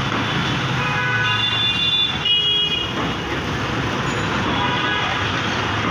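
Steady street traffic noise with a low hum, and several vehicle horns tooting between about one and three seconds in, with a fainter horn near the end.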